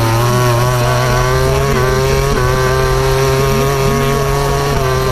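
Onboard sound of a Yamaha YZR-M1 MotoGP bike's inline-four engine at high revs, loud and steady, its pitch creeping slowly upward as the bike accelerates out of a corner onto a straight.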